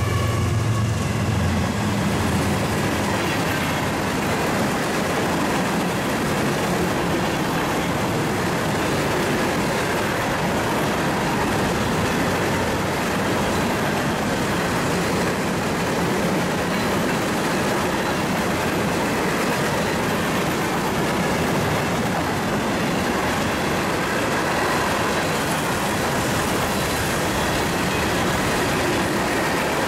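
A freight train's empty covered hopper cars rolling past at speed: a steady, loud rumble and rattle of steel wheels on rail. In the first second or two the drone of the trailing diesel locomotive fades out beneath it.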